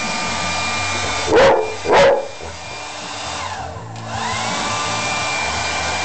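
Hair dryer blowing steadily on a wet Labrador, which barks twice, about a second and a half in and again half a second later. The dryer then drops off for a moment, and about four seconds in its motor whine rises as it comes back up to speed.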